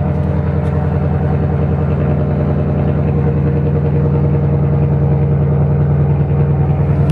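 Ford Mustang's engine idling steadily, a low, even running sound.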